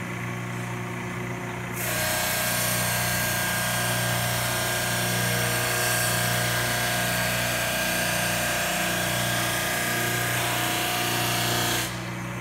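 Jet 16-32 Plus drum sander running with a steady motor hum. About two seconds in, a board on the conveyor meets the 80-grit sanding drum, and a loud, steady grinding hiss holds for about ten seconds, then stops abruptly as the board clears the drum.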